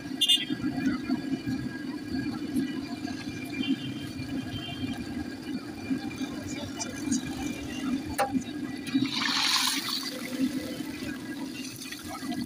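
Battered finger fish deep-frying in a large wok of hot oil, the oil bubbling and sizzling steadily. A louder hiss swells for about a second around nine seconds in, and there are a couple of sharp clicks.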